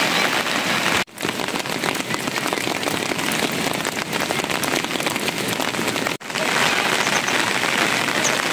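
Steady rain falling, a dense hiss with many separate drop hits, that cuts out for an instant twice: about a second in and again about six seconds in.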